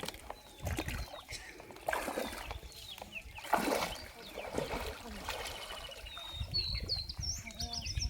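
Water splashing in a pond, with the loudest splash about three and a half seconds in and small birds chirping near the end.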